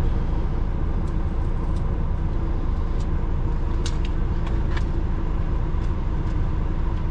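Truck engine idling, heard from inside the cab as a steady low rumble, with a few faint, irregular clicks.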